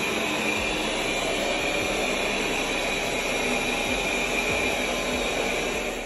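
Roborock S7 MaxV robot vacuum running at its maximum suction setting: a steady whir with a high whine, reading about 81 dB on a sound level meter held close by.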